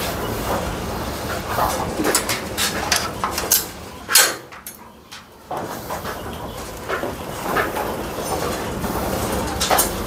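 A herd of goats hurrying down steps and out through a gate, hooves knocking and clattering, with one sharper, louder knock about four seconds in.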